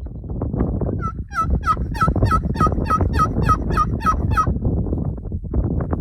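Turkey calling: a run of about a dozen evenly spaced notes, about three a second, over steady low noise.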